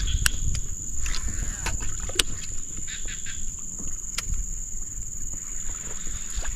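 A steady high-pitched insect drone, over a low rumble and a few scattered sharp clicks.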